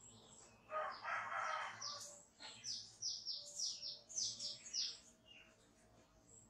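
Small birds chirping in short, high, falling notes, with a quick run of about five chirps a second in the middle. About a second in comes a louder, rougher call lasting about a second.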